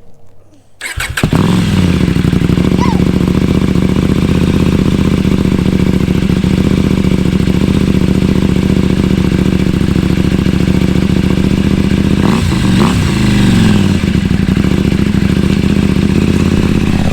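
KTM 790 Adventure R Rally's parallel-twin engine, fitted with stock headers, a catless link pipe and an Akrapovic slip-on with its baffle removed, is started about a second in and settles to a loud, steady idle. About twelve seconds in the throttle is blipped into a short rev that drops back to idle.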